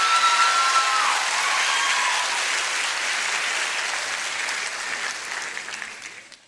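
Theatre audience applauding at the end of a dance piece, with a long high cheer held over the clapping during the first second or so. The applause fades out near the end.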